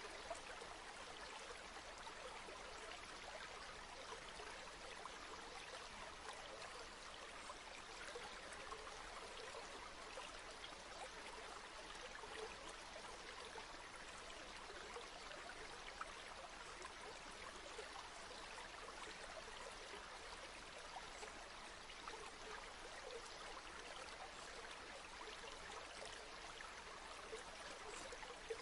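Faint, steady flowing river water, a continuous babble with small splashes and trickles.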